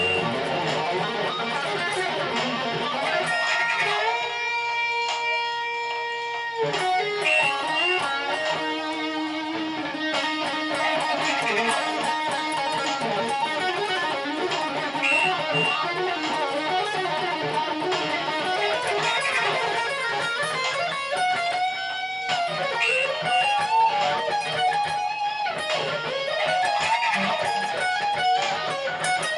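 Electric guitar playing an improvised lead solo: a long held note about four seconds in that cuts off sharply, then runs of notes with bends near the end.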